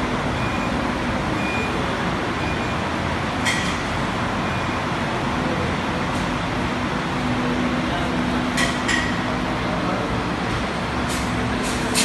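Steady machine noise from a commercial hood-type dishwasher whose wash cycle has just ended, broken by a few sharp clicks and clanks: one about three and a half seconds in, two close together near nine seconds, and more near the end.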